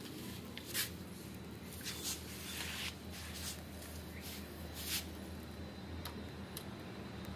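Scattered short clicks and scrapes of wire leads and clips being handled at a diesel engine's electric starter, over a steady low hum.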